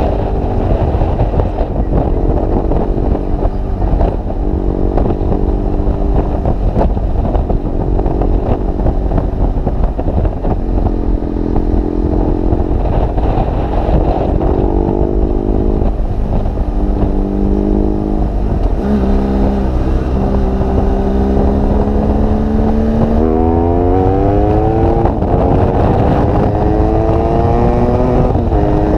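BMW R1200GS Adventure's boxer twin through an aftermarket SC Project GP exhaust, pulling through the gears: its note climbs in pitch and drops back at each upshift, with a steadier stretch just past halfway.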